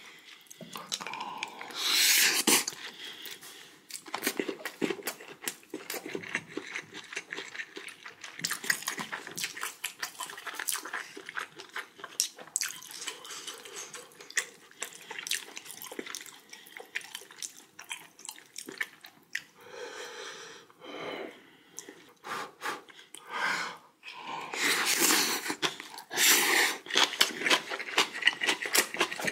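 Close-up wet chewing and lip-smacking of a person eating a mouthful of white rice and raw yellowtail sashimi: many small irregular moist clicks, with a few louder breaths in between.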